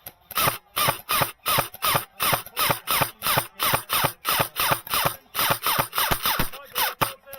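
Airsoft electric gun (AEG) firing rapid single shots, about four a second, each with the whir and clack of its gearbox cycling; its battery is nearly flat.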